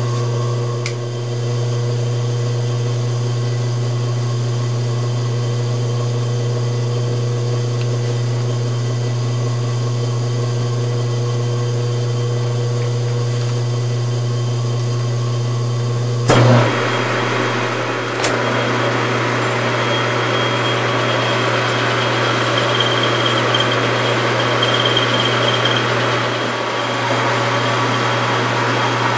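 Metal lathe running with a steady motor hum. About sixteen seconds in there is a sharp click, and after it a rougher hiss joins the hum as the cutting tool turns the spinning billet aluminum tube.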